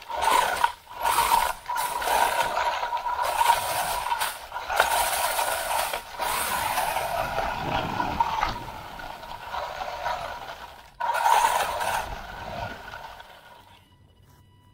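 WLtoys 144001 electric RC buggy driving over bumpy grass and dry leaves, recorded from a camera on the car: a steady high motor whine over rattling drivetrain and crunching tyre noise, cut by brief dropouts as the throttle is lifted. Near the end it slows and stops, leaving only a faint high whine.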